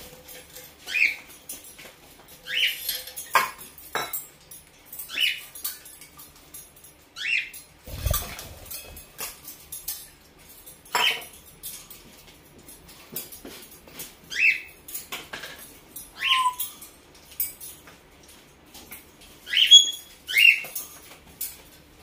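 African grey parrot giving short squeaky calls that mostly fall in pitch, about ten of them, one every second or two. Sharp metallic clicks and a dull thump about eight seconds in come between the calls.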